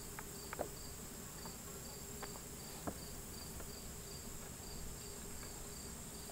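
An insect, probably a cricket, chirping steadily, with a short high chirp repeating about two or three times a second over a faint high buzz. A few light clicks come through, the sharpest about half a second in and near three seconds, as small carburetor parts are handled.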